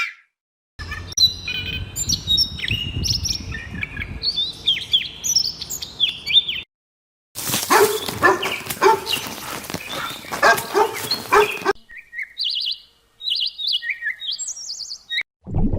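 A sequence of separate animal-sound clips: birds chirping in quick rising and falling notes, then after a short break a stretch of short, harsh repeated calls over noise, then clean bird chirps again.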